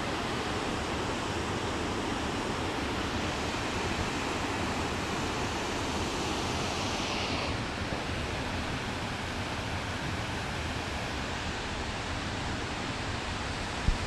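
Stigfossen waterfall: a steady rush of falling water that grows brighter and hissier for a few seconds near the middle.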